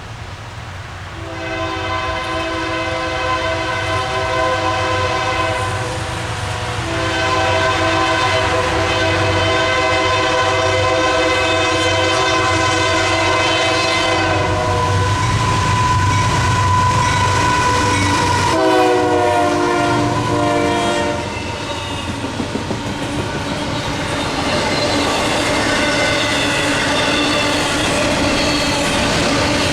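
Diesel freight locomotive's Nathan K5LA air horn sounding a horn show: two long chord blasts of about five and seven seconds, then a shorter blast at a lower pitch. A heavy diesel engine rumble runs underneath, and the clickety-clack of the passing train follows.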